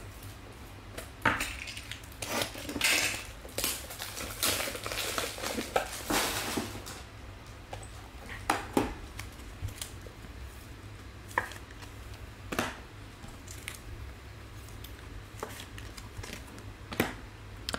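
Hands handling trading cards and their plastic packaging: scattered clicks, taps and rustles, busiest in the first seven seconds and sparser after, over a low steady hum.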